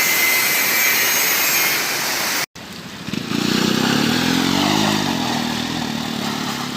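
A loud, even rushing noise cuts off suddenly about two and a half seconds in. A motorcycle engine follows, running with its pitch rising and then falling as it is revved.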